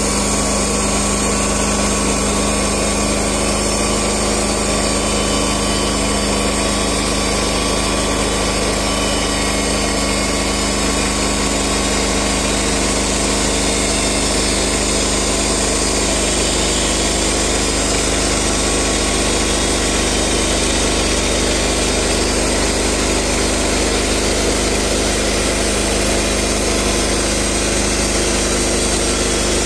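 Portable band sawmill's gasoline engine running steadily while its band blade saws along a tulip poplar log.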